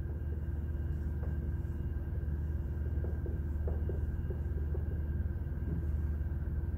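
Steady low room hum, with faint short squeaks and taps of a dry-erase marker writing on a whiteboard, most of them in the middle of the stretch.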